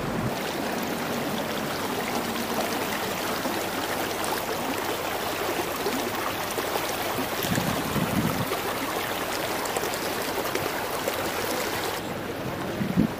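Steady rushing of flowing water, like a mountain stream, an even hiss throughout.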